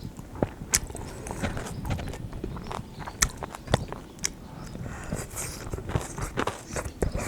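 Close-up eating sounds of noodles and crisp kimchi: chewing, with irregular sharp clicks and smacks.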